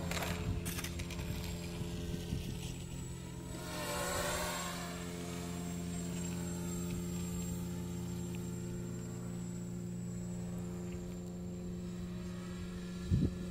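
Small 250 mm FPV quadcopter flying overhead: a steady buzzing hum from its electric motors and propellers. About four seconds in it swells briefly, with a shift in pitch.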